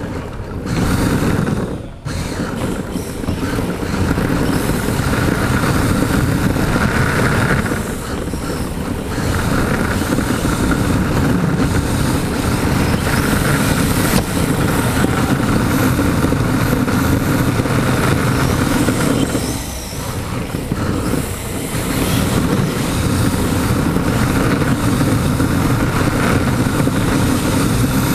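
Onboard running noise of a Yokomo DIB 1/10-scale RC drift car, picked up by a camera mounted on its body: a steady whir and rumble from its brushless motor, drivetrain and tyres that dips briefly a few times.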